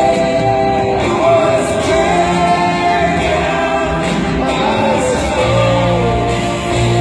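Live rock concert music over an arena sound system, recorded from the stands: long held sung notes that slide up and down over a steady instrumental backing.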